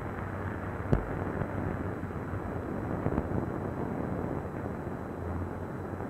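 Steady rumbling noise with a low hum, muffled and dull as on an old 1930s film soundtrack, with a single sharp click about a second in.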